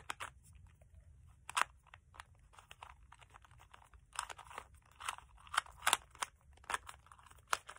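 Plastic clicking and clacking of a ball-shaped 2x2 twisty puzzle being turned by hand, in irregular clicks with a few louder snaps, most of them in the second half.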